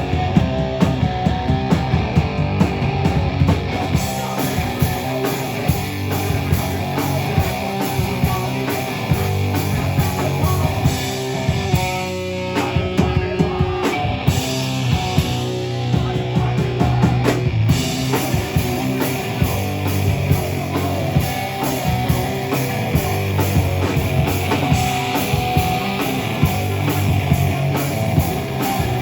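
A rock band playing live at full volume: distorted electric guitars, bass and a drum kit. About midway the drums drop out for a couple of seconds, leaving ringing guitar chords, before the whole band crashes back in.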